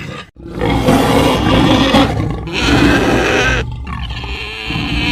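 Designed dinosaur roar sound effect for Gojirasaurus: one long, rough, loud roar of about three seconds, then after a short break a quieter second roar.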